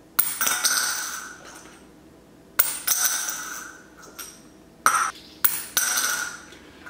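Quarters bounced off a countertop into a glass: a sharp clink that rings on for a second or so, heard three times, with two short clicks just before the last one.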